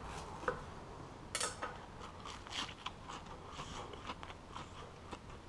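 Knife cutting through a toasted bread roll on a wooden chopping board: faint crunches and light clicks, the sharpest about a second and a half in.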